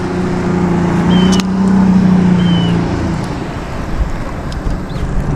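A motor engine running steadily with a low hum, fading out about three seconds in.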